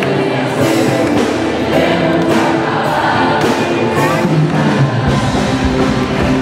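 Upbeat Christian worship music with singing over a steady drum beat, about two beats a second; a deep bass comes in about five seconds in.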